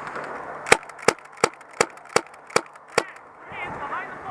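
Airsoft gun firing seven quick single shots in a steady rhythm, about three a second, each a sharp snapping crack.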